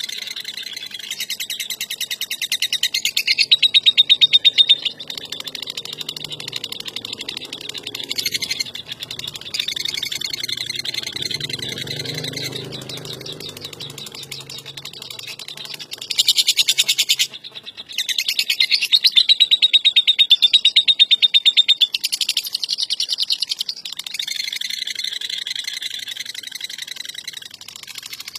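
Lovebird giving its long 'ngekek' song: a rapid, unbroken chattering trill that keeps going with little pause, swelling louder in several stretches.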